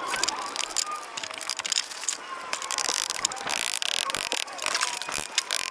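Concrete block pavers being set back into a sand bed: blocks scraping over sand and clacking against each other, then a rubber mallet knocking them level.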